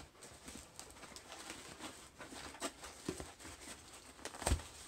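Sellotape being peeled off a cardboard box and the box's flaps being handled: soft scattered crackles and rustles, with one sharp crack near the end.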